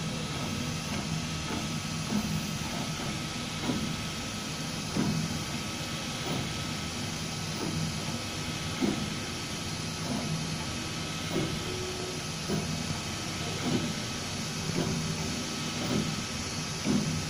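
MINGDA FDM 3D printer at work: its stepper motors hum and whine at shifting pitches as the print head traces the layer, over a steady fan hiss. Short knocks come about once a second.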